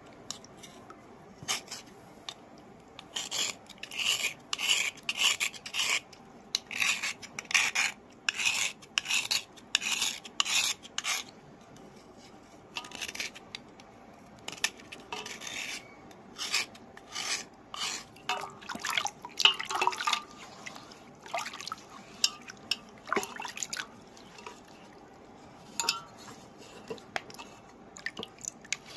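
Small knife scraping the wet surface of a soft white stone, flaking off its outer layer in short repeated strokes, about two a second and densest in the first half, sparser and more irregular after.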